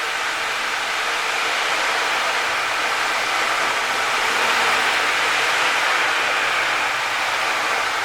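Ocean drum, 20-inch, with large plastic beads and very small metal beads rolling across the drumhead, making a steady surf-like wash that swells a little midway and eases off again.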